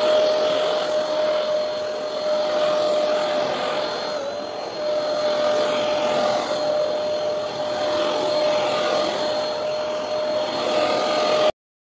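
Kurumi handheld UV anti-dust-mite vacuum cleaner running: a steady motor whine over a rush of air, dipping briefly in pitch about four seconds in, then cutting off abruptly near the end.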